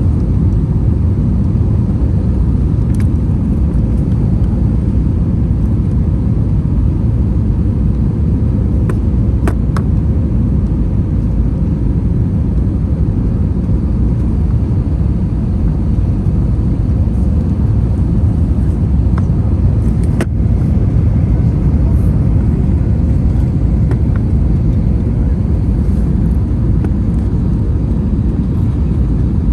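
Steady airliner cabin rumble inside an Airbus A321-200 with IAE V2500 engines, heard from a window seat. It holds level throughout, with a few faint clicks, one about ten seconds in and one about twenty seconds in.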